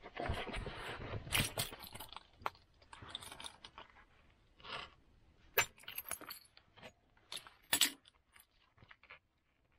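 Flint and a hammerstone handled on a leather hide: a couple of seconds of rustling as the flint is turned over, then scattered sharp clicks and clinks of stone against flint, the loudest about halfway through and again a little later.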